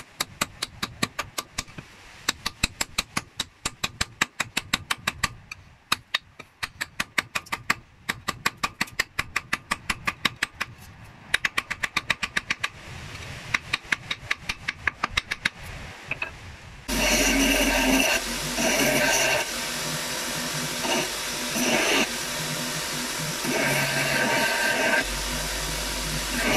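Hammer tapping a small metal wedge into the eye of a hatchet head to fix it on its wooden handle: quick runs of sharp metal-on-metal strikes, several a second. About 17 seconds in this gives way suddenly to a bench belt sander's motor running steadily, swelling louder at times.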